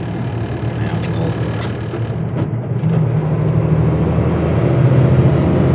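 Crane truck's engine running and road noise heard from inside the cab while driving, a steady low drone that rises a little in pitch about three seconds in and grows slightly louder towards the end.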